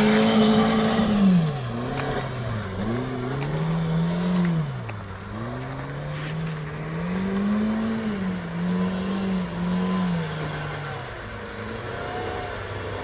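Toyota Starlet's engine being revved hard as the car is driven in loose sand, its pitch rising and falling over and over as the throttle is worked. It is loudest in the first second, then quieter as the car pulls away.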